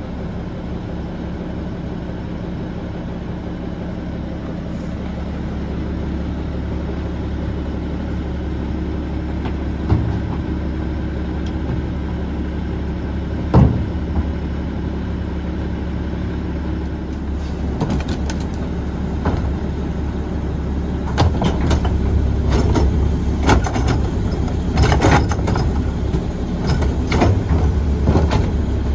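Mack LE garbage truck's diesel engine idling steadily, with a couple of single knocks. From a little past halfway, a run of clattering bangs as a trash cart is tipped into the carry can by its semi-automatic lift.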